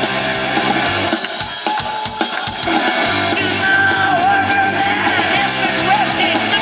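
Live rock band playing: electric guitars, bass and drum kit, with the drums to the fore about a second in, then a male voice starts singing over the band about halfway through.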